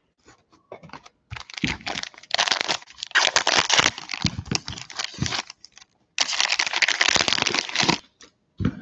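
Football trading-card pack wrapper crinkling and tearing as it is opened and the cards are pulled out, in two long stretches with a short break about six seconds in.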